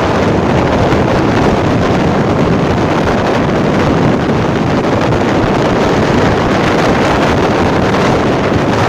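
Steady wind noise buffeting the microphone on a moving motorcycle, with the rush of the ride underneath and no distinct engine note.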